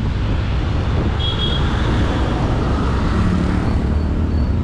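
Steady wind and road rumble from a two-wheeler on the move, with its engine running underneath and tyres on wet road. Other traffic is around it, and a faint short high tone sounds about a second in.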